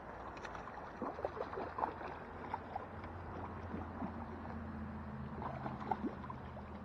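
Water splashing in a shallow creek as a hooked salmon is worked to the bank and grabbed by hand, in short irregular splashes over the creek's steady flow.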